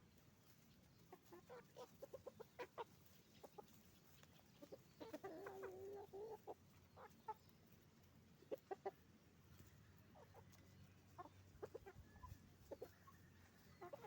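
Chickens clucking faintly, with scattered short clucks throughout. About five seconds in there is one longer, drawn-out call lasting about a second and a half.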